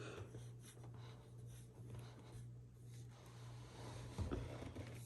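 Faint rustling and scraping of the grooming vacuum's flexible plastic hose being handled, with a few light knocks about four seconds in.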